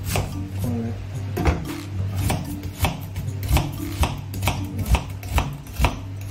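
Chef's knife slicing through an onion and knocking the cutting board in an even rhythm, about two cuts a second.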